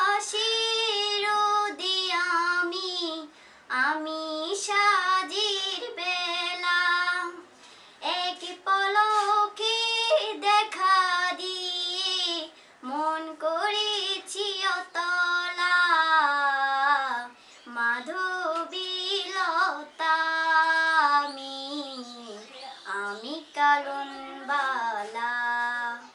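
A young woman singing a Bengali song unaccompanied, her bare voice carrying long held and gliding notes in phrases broken by short pauses for breath.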